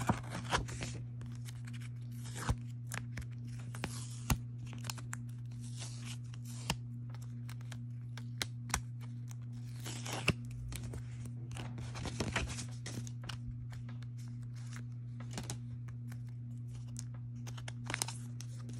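Paper envelope tearing open, then irregular crinkling and rustling as tape and a thin plastic wrap are peeled off a hard plastic toploader holding a photocard. A steady low hum runs underneath.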